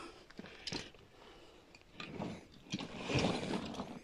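Scraping, rustling and small knocks of a person clambering up through a tight rocky cave passage, body and gear rubbing on the stone, with a louder scuffle about three seconds in.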